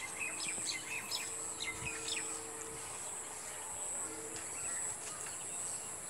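Small birds chirping in quick short notes for the first two seconds or so, over a steady high-pitched insect drone.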